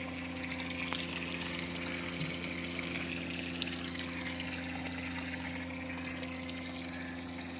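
Steady electric hum of the tank's aeration equipment with water bubbling and fizzing at the surface, as air is pumped continuously through the biofloc tank.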